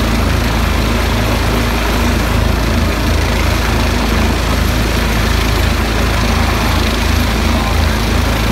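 Police helicopter's turbine engine and rotor running steadily while it sits on its skids on the ground.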